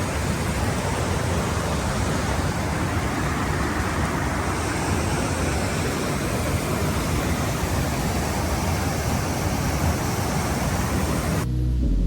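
Looking Glass Falls, a waterfall, rushing steadily: a dense, even roar of falling water. It cuts off suddenly near the end, where music begins.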